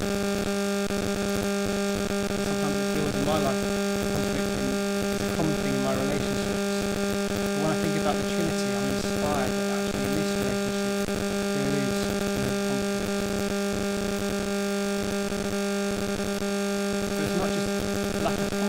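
Steady electrical hum in the audio feed: a strong low tone with a ladder of evenly spaced overtones above it. It almost drowns a man's voice preaching faintly underneath.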